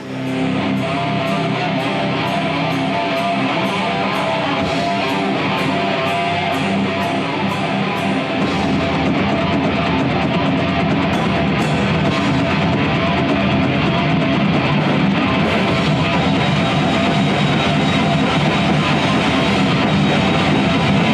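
Heavy metal played by a rock band with distorted electric guitar and drum kit. A steady ticking beat of about two a second runs through the first eight seconds, then the bass and full drums come in and the music gets a little louder.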